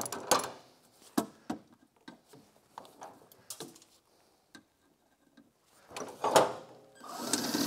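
Scattered clicks and knocks of a cordless drill and bit being worked against the riveted aluminium running board. About seven seconds in, the drill starts spinning steadily as it bores out a rivet.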